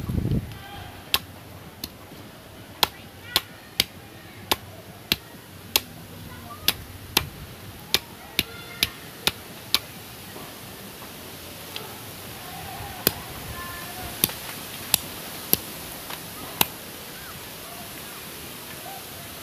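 Bolo knife chopping at a green bamboo pole laid against a stone: about twenty sharp strokes, roughly two a second, with a short pause midway, stopping a few seconds before the end. Faint voices in the background.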